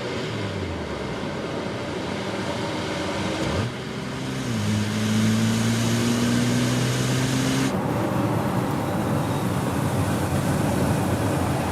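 Porsche Cayenne E-Hybrid's six-cylinder engine running under way with a steady hum, a quick rise in pitch about three and a half seconds in, then a slow climb in pitch. About eight seconds in the engine note drops away, leaving an even rush of road and tyre noise.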